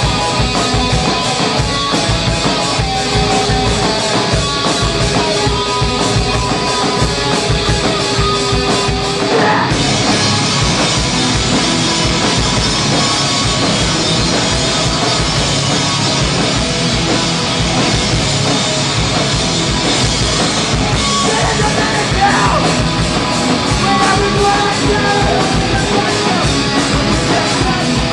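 A hardcore band playing live at full volume: distorted rock with fast, pounding drums. A single note is held for about six seconds, then about ten seconds in the cymbals crash in and the band comes in harder.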